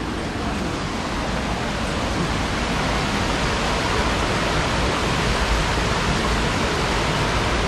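Rocky mountain stream rushing steadily over boulders and small cascades, getting a little louder over the first couple of seconds.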